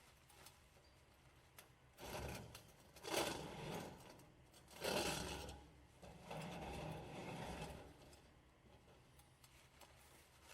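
Chimney pipe scraping and rustling as it is fed down inside the chimney, in four rough bursts of a second or so each, the loudest about three and five seconds in.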